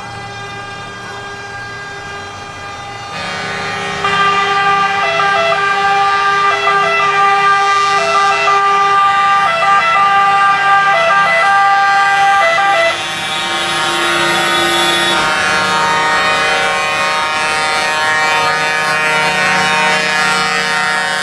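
Air horns of heavy trucks sounding together in long held chords, getting louder about three and four seconds in. For about eight seconds in the middle, one horn switches back and forth between two notes.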